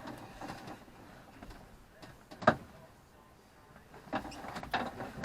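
A single sharp knock about halfway through, with quieter scattered clicks and handling noises near the end: hand tools and parts being handled while working on a stopped boat engine.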